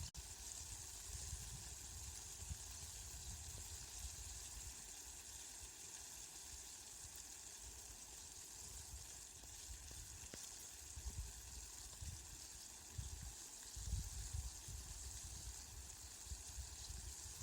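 Steady rain falling, an even high hiss, with low rumbles swelling and fading now and then, strongest about two-thirds of the way through.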